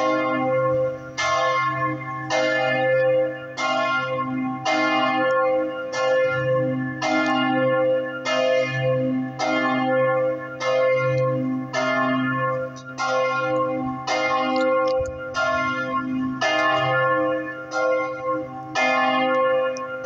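Church bells ringing a swinging peal (distesa) from the campanile, with overlapping clangs about once a second and long ringing tones between them. The tower holds three bells cast in 1938 and two small bells cast in 1922.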